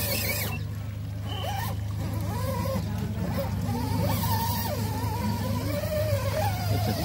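Electric motor of a scale RC crawler truck whining, its pitch rising and falling with the throttle as it creeps toward a muddy water hole, over a steady low hum.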